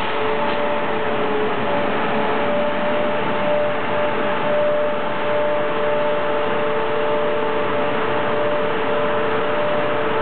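Kershaw rail maintenance machine running steadily as it pushes a steel-wheeled cart along the track, an even mechanical noise with a ringing whine held at a few steady pitches.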